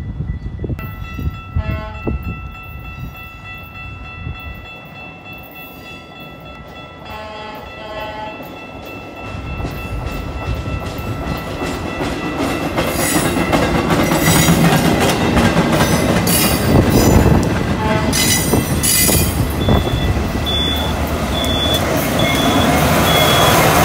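A work train, led by a caboose and hauling flatcars, approaching and passing close by. A train horn sounds briefly twice in the first eight seconds, then the rumble and clatter of wheels on rail build up and stay loud as the cars roll past.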